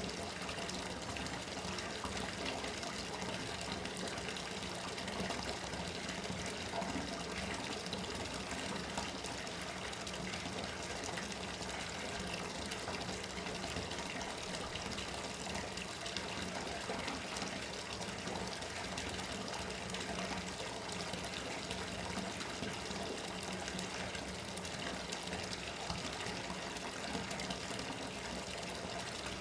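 Bathtub tap running steadily into the tub, an even rush of water filling it, with a faint low hum underneath.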